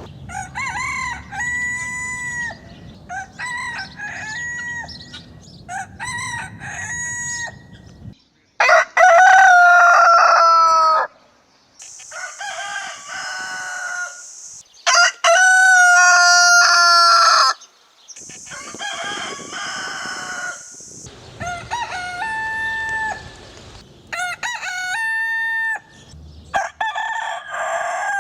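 Roosters crowing one after another, many crows in succession, some overlapping. The crows come from several different recordings cut together, with two louder, closer crows about a third of the way in and just past halfway.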